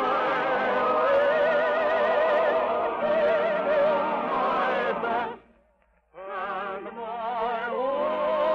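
Orchestral music from a 1950 radio broadcast, with melody lines carrying a strong vibrato. It breaks off about five seconds in for under a second of near silence, then starts up again.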